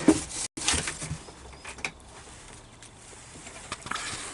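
A few sharp knocks and clicks of objects being handled and set down, mostly in the first two seconds, then fainter scattered ticks.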